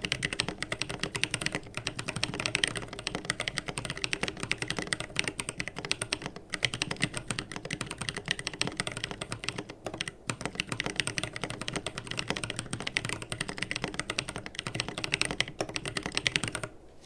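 Keebio Nyquist custom mechanical keyboard with AE Naevy switches being typed on fast and continuously, a dense stream of key clicks with brief pauses about six and ten seconds in; the typing stops just before the end.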